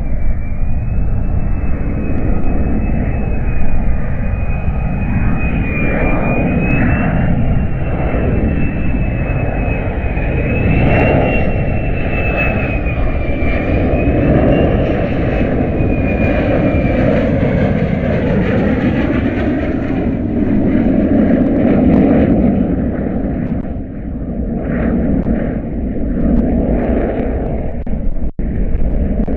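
Jet engine of a Lockheed Martin F-35A Lightning II (single Pratt & Whitney F135 turbofan) rumbling steadily as the fighter passes overhead, with a faint high whine that wavers through the first half and then fades.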